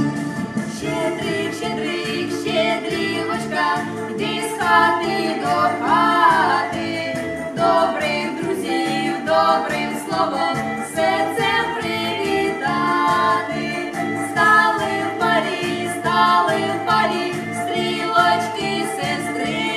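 Female voices singing a Ukrainian shchedrivka (New Year carol) over instrumental accompaniment with a steady beat.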